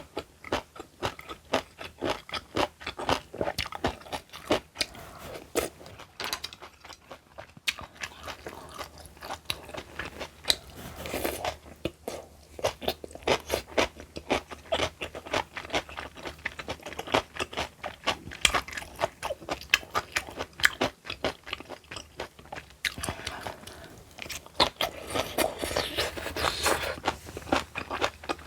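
Close-miked chewing of crunchy food: a rapid run of crisp crunches and bites, with short lulls between mouthfuls.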